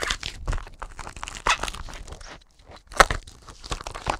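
Packaging wrap being cut and peeled off by hand, crinkling and tearing in irregular bursts, with the sharpest crunch about three seconds in.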